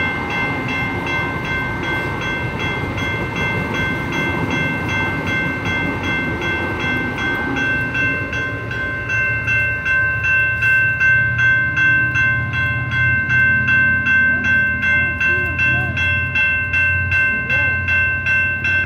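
General Signals Type 2 electronic crossing bell ringing at a steady beat of about two strikes a second while the crossing signals are active. A light rail train passes through the crossing during the first half, its low running noise dying away about eight seconds in, after which the bell rings on alone.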